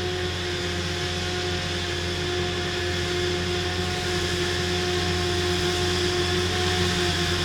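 Claas Jaguar 970 forage harvester at work chopping triticale, with tractors alongside: a steady engine drone under a constant high whine, slowly getting louder.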